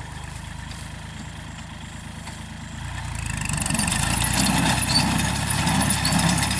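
Tractor engine running with a rice straw baler working behind it: a steady engine hum that grows louder from about three seconds in, with more clatter and whine from the baler mixed in.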